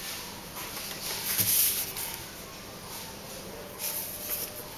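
Ballpoint pen scratching across paper as lines are drawn along a plastic ruler, in short strokes, the clearest about a second in and again near the end, over a faint steady hiss.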